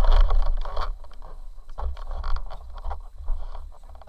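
Camera handling noise: rubbing and scraping against the microphone with low rumbling thumps, loudest in the first second, then scattered light clicks and knocks as the camera is moved about.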